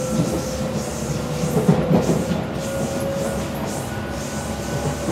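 Running sound heard inside a Tobu 8000 series electric train car in motion: a steady rumble of wheels on rail under a steady hum. A few clacks of the wheels over rail joints come about two seconds in.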